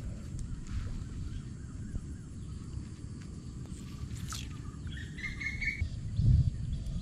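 Birds chirping over a low steady outdoor rumble; a short pitched call lasting about a second comes around five seconds in.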